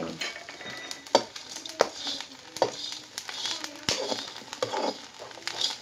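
Chopped green chillies roasting in a steel kadhai over a wood fire, with a light sizzle and a metal spatula scraping and tapping the pan several times as they are stirred.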